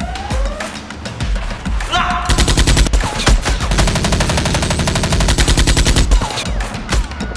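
Rapid automatic-gunfire sound effect: a dense burst of shots starting about two seconds in and lasting about four seconds, over background music. A rising siren-like wail fades out in the first second.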